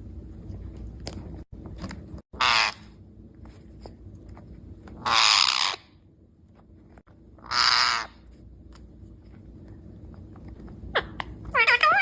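Pet parrot giving three loud, harsh screeches about half a second long and a couple of seconds apart. A warbling whistled call starts near the end.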